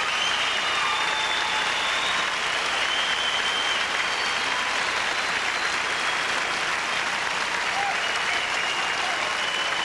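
Audience applauding steadily, with a few high whistles mixed in.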